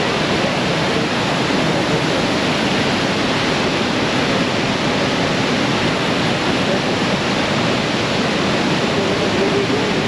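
Manavgat Waterfall, a wide, low river cascade, with its water rushing over the rock ledge and churning below in a loud, steady, unbroken rush.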